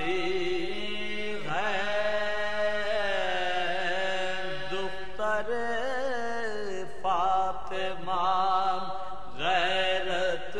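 A male reciter chanting an Urdu marsiya in soz style: one voice in long, wavering, ornamented melodic phrases without instruments, a fresh phrase beginning every few seconds.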